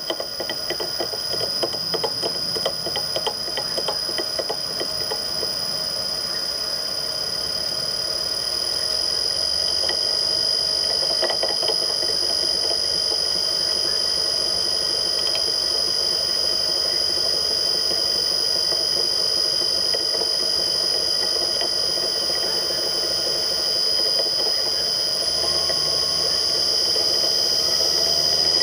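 Bridgeport-type mill motor running on rusted, worn-out ball bearings, a steady high-pitched whine with a rough rattle. The rattling clicks are plainest in the first few seconds, and the sound grows louder over the first ten seconds or so before holding steady. The noise is the sign of failed motor bearings.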